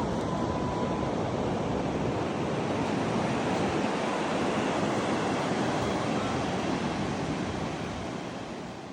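Pacific Ocean surf: a steady wash of breaking waves, fading out near the end.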